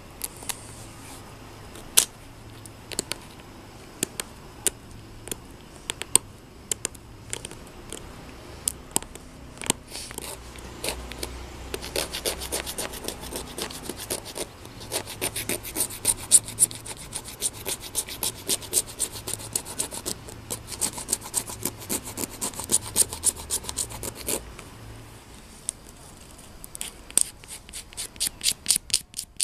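A flint flake scraping and grooving the white blank of a replica Magdalenian harpoon, shaving it down in short strokes. The strokes come singly at first, then in a fast steady run through the middle, pause briefly, and pick up quickly again near the end.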